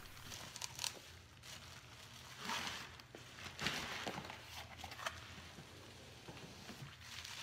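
Faint rustling and crinkling of a plastic bag liner and scraping of cardboard as a box is handled, in a few short irregular bursts over a low steady hum.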